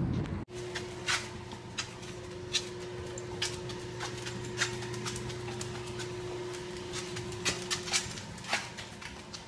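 A dog's claws clicking on a hard tile floor as it walks about, in irregular taps one or two a second, over a steady low hum.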